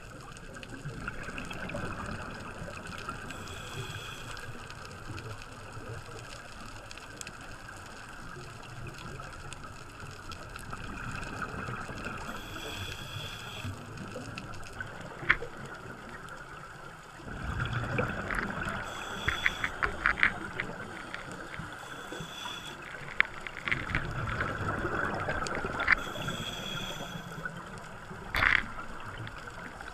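Underwater breathing of a scuba diver through a regulator: a short hiss on each inhale every few seconds, and exhaled bubbles gurgling with crackling clicks, loudest in two stretches after the middle.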